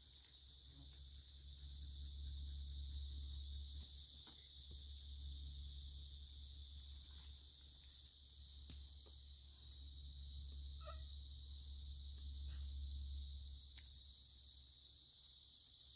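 Steady high-pitched insect chorus, with a low rumble underneath that swells and fades and a few faint clicks.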